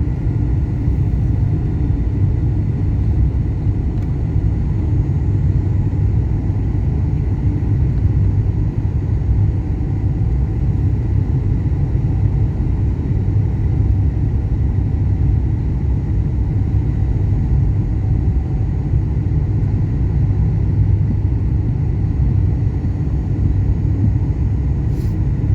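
Airliner cabin noise: a steady, unchanging low rumble of jet engines and airflow, with faint steady whines above it.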